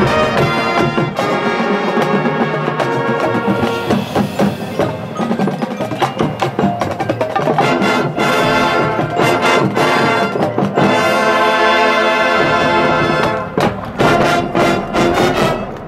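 High school marching band playing: brass ensemble with drums and mallet percussion in full, dense chords, with a brief drop about two seconds before the end and a final chord that cuts off near the end.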